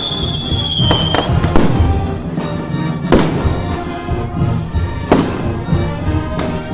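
Firecrackers and fireworks going off in a handful of sharp bangs over festival music. A high whistle sounds for about a second at the start, falling slightly in pitch.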